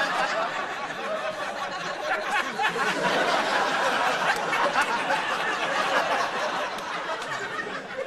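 Studio audience laughing steadily.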